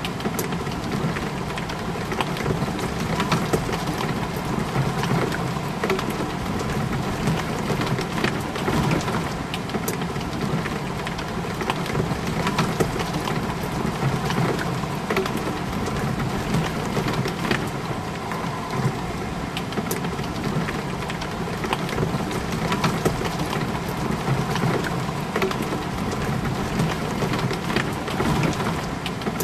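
Steady rain hitting a window, a dense even hiss of drops with many small sharp ticks throughout.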